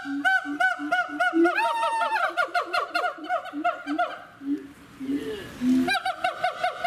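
A rapid series of short, high chirping calls, about five a second, with a lower-pitched call sounding between them; the chirps break off about four seconds in and start again near the end.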